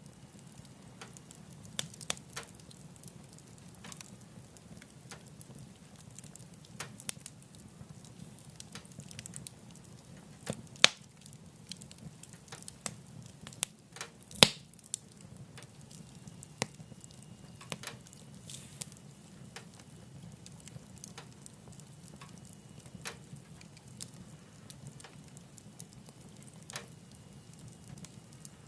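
Wood fire burning in a wood-burning stove, crackling with irregular sharp pops over a steady low rumble; two pops about 11 and 14 seconds in are much louder than the rest.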